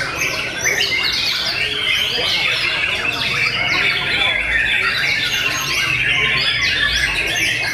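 Caged white-rumped shamas singing at once: a dense, unbroken run of fast, overlapping whistles and chirps.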